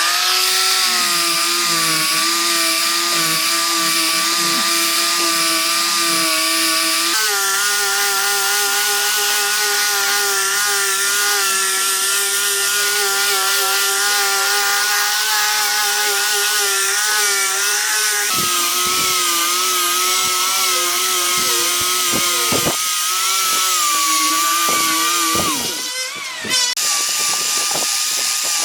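A power tool running steadily at high speed as it works a log, its pitch shifting a few times as the load changes, with a short dip near the end.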